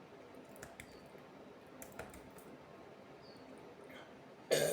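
Quiet room with a few faint, short clicks and taps scattered through it. A woman's voice starts near the end.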